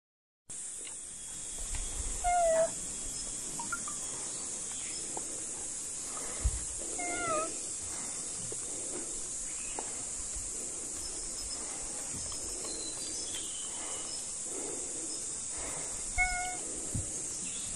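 Macaques giving three short, high-pitched calls, about two seconds in, about seven seconds in and near the end, over a steady hiss. A soft thump comes about six and a half seconds in.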